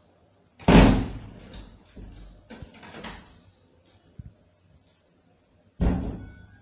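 Two heavy bangs against a wooden door, about five seconds apart, each dying away over about a second, with softer knocks and handling sounds between.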